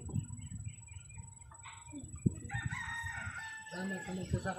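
A rooster crows once, a drawn-out call of about two seconds starting around the middle, over a low rumble.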